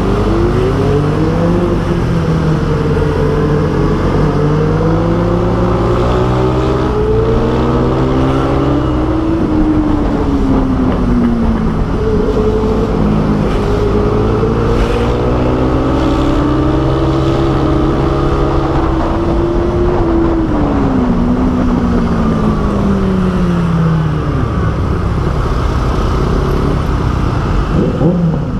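Motorcycle engine accelerating and easing off twice: the pitch climbs slowly for about nine seconds, drops, climbs again and falls away near the end, over a steady low engine drone.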